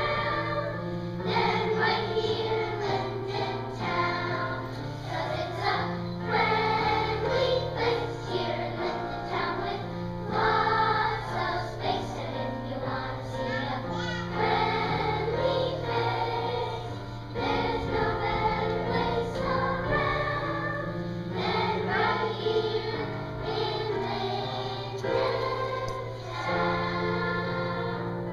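Children's choir singing a song in unison, over a musical accompaniment that holds a steady bass line.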